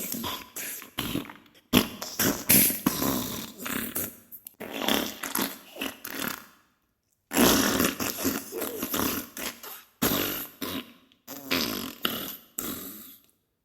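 Diarrhea sound effect: a string of irregular sputtering fart bursts, with a short silent break about halfway through.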